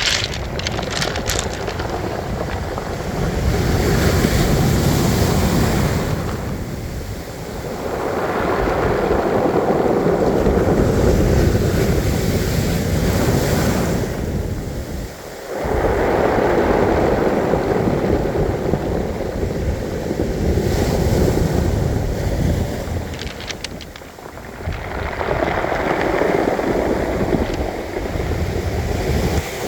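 Sea waves breaking and washing up a pebble beach, the surf swelling and falling back every few seconds, with a few sharp clicks as stones are moved. Wind buffets the microphone.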